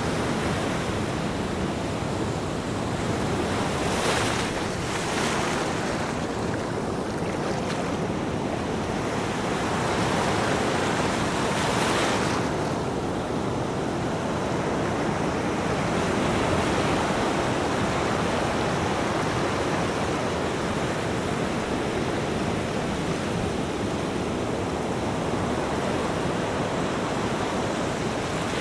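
Ocean waves breaking and washing on a beach, a continuous surf wash with hissing surges as waves break, about 4 seconds in and again around 11 seconds.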